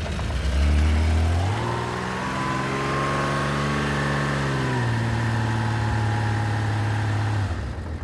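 A 1980 Honda CBX's air-cooled inline-six engine catches and runs smoothly on choke at a fast idle. Engine speed steps up about a second and a half in, eases back a little around five seconds, and settles to a lower idle near the end.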